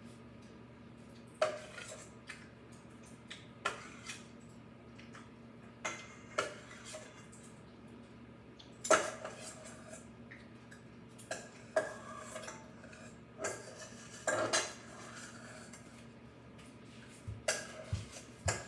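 Dishes and utensils clinking and knocking now and then, about a dozen separate sharp clinks, over a faint steady low hum.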